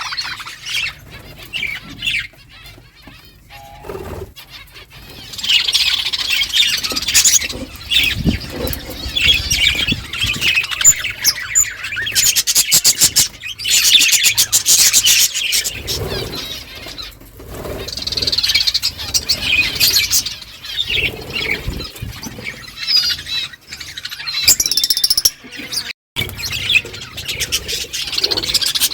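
A flock of budgerigars chirping and chattering together, with many overlapping calls. The flock is quieter for the first few seconds, then grows busier in waves.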